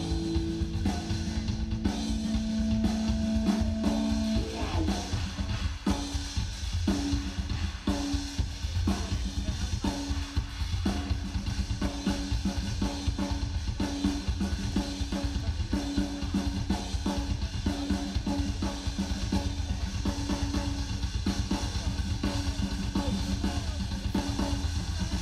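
A held electric guitar chord rings for the first few seconds, then a ddrum drum kit plays a live rock drum solo: steady, rapid bass drum and snare hits with pitched tom strokes repeating in a rhythm.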